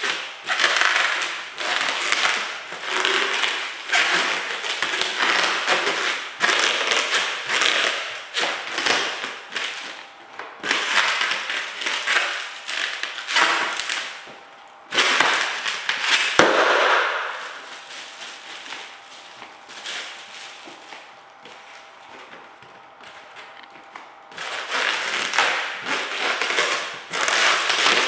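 Mylar foil balloons crinkling and crackling as sock-clad feet stomp on and squash them, in repeated loud bursts. There is one louder burst about halfway through, then a quieter stretch before the crackling picks up again near the end.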